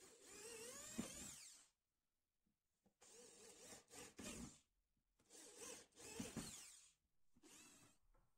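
Power drill boring into a pine board in four short bursts with pauses between. The motor's whine rises as it spins up at the start of the first burst.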